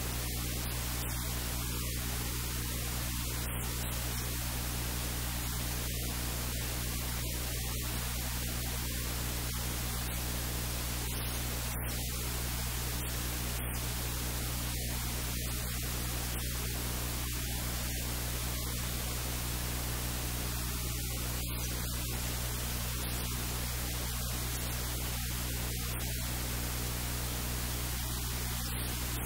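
Steady hiss of static on the recording, with a low, steady hum underneath; no voice comes through.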